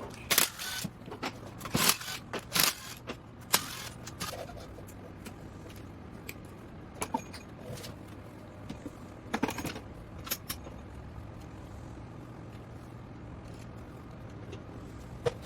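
Hand tools and metal parts clinking and clicking while a two-stroke motorcycle engine case is unbolted and taken off: a quick run of sharp clinks in the first few seconds, then a few scattered knocks.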